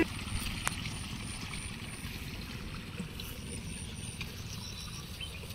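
Faint steady outdoor background of water running in a narrow concrete irrigation channel beside a flooded rice paddy, with a single faint click under a second in.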